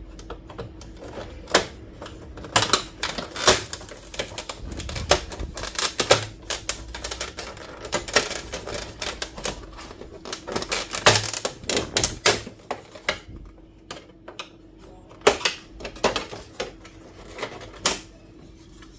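Plastic cover of a Brother DCP-T310 printer being pried open with a flat-blade screwdriver: irregular clicks and snaps of plastic clips and the tool against the casing, some in quick clusters.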